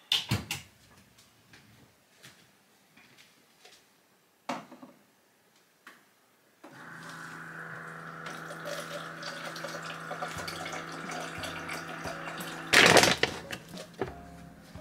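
A few light clicks and knocks of kitchen things being handled, then a kitchen tap running steadily for about six seconds, cut off by a brief loud noise near the end.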